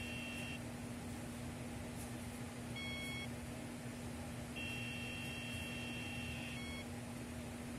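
Fax machine's line speaker sounding call-progress tones while it dials out: a high, two-note tone lasting about two seconds that ends just after the start and comes back about 4.5 s in, with a short single beep about 3 s in and another near the end. A steady low hum runs underneath.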